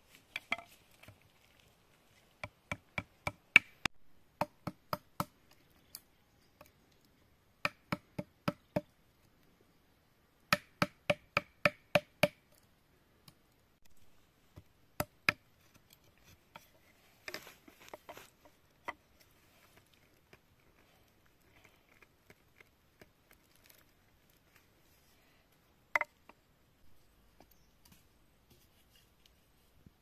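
A machete-like knife chopping at a green bamboo stick laid on a bamboo log: runs of sharp, quick knocks, several in a row at about three a second, separated by pauses. A short scraping comes a little past halfway, and a single strike comes near the end.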